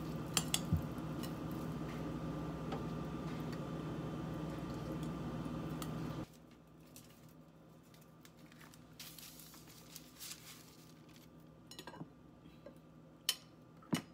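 Metal spoon stirring and mashing cooked sushi rice in a glass bowl: soft squishing with a few light clinks against the glass, over a steady hum. About six seconds in it cuts off sharply, leaving faint rustling and small handling knocks, with two sharp taps near the end.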